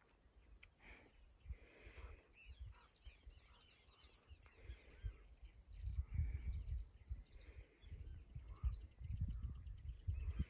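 Birds chirping and calling, many short rising and falling chirps. A low, gusty rumble joins them in the second half.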